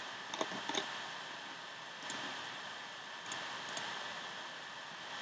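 Several faint, scattered clicks of a computer being operated, over a steady hiss.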